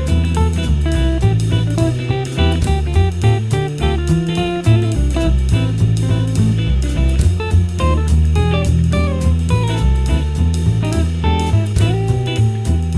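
Background music: guitar playing over a drum kit with a steady beat.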